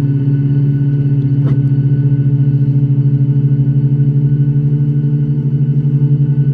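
Boeing 737 MAX's CFM LEAP-1B turbofan engines running, heard inside the cabin as a steady low hum that pulses rapidly, with a faint click about a second and a half in.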